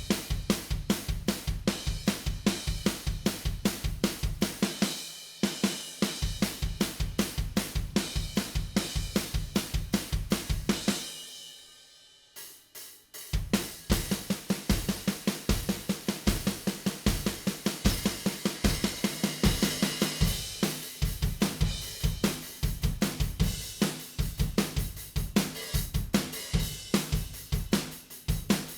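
Playback of a recorded drum kit, its kick, snare and toms blended with triggered drum samples: a steady beat of kick, snare, hi-hat and cymbals. About 11 seconds in the playing stops and rings away, then starts again about 2 seconds later.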